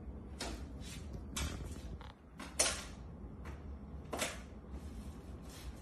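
A run of short scrapes and rustles, the loudest about two and a half seconds in: a dog's paws and nose shuffling dishes and plastic containers on a kitchen counter, over a steady low hum.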